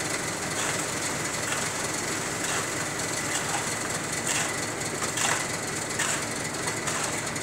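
Machinery running steadily, a continuous noise with a few brief louder moments.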